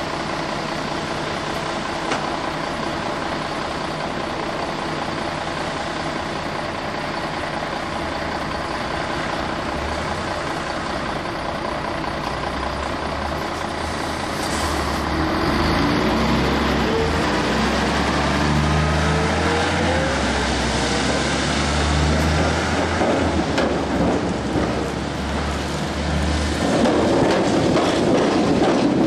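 Gotha T2-62 tram rolling slowly over curved track and points, its wheels and running gear making a low rumble and grinding that grows louder about halfway through as it comes near.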